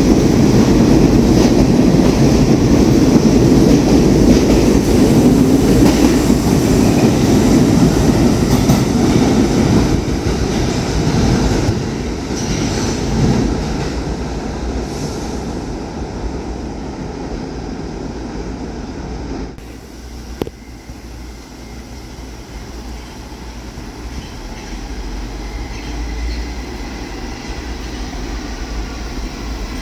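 New York City subway train running on the track, a loud rumble for about the first ten seconds that then fades away as the train moves off. There is a single sharp click about twenty seconds in.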